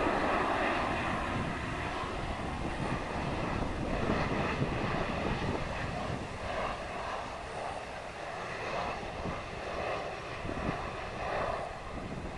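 Jet engines of a Boeing 737-800 airliner on final approach with its gear down: a steady rushing drone with a faint high whine, easing slightly in level. Wind buffets the microphone underneath.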